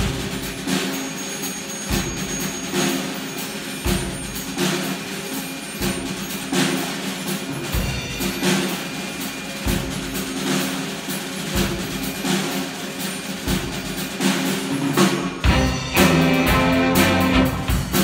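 Big band of saxophones, brass and rhythm section playing a piece, with a low drum hit about every two seconds. The band comes in fuller and louder near the end.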